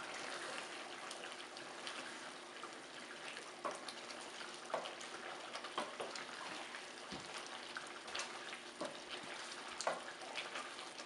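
Thick coriander chicken gravy simmering and bubbling in a pan, with scattered small pops and the scrape of a wooden spatula stirring it. The chicken is cooking in its own juices, with no water added.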